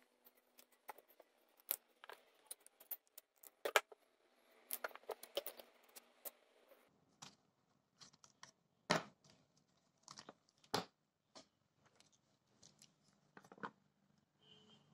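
Scattered light clicks, taps and paper rustling from hands handling a sheet of drawing paper on a wooden table, with a longer rustle a few seconds in.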